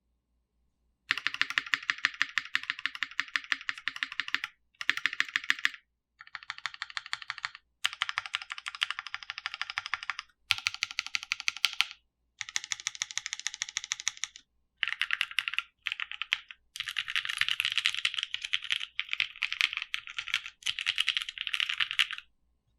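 Custom Monokei KFE CE tenkeyless mechanical keyboard with Lavender/Cream switches and GMK First Love keycaps, typed on fast in runs of a few seconds with brief pauses between them. The keyboard sits on a bare desk with no desk mat.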